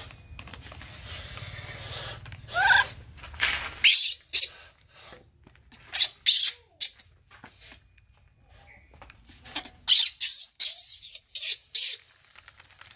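Baby macaque giving short, shrill squeals again and again, with one rising squeal a few seconds in and a cluster of them in the last few seconds, its cries while being fed from a milk bottle.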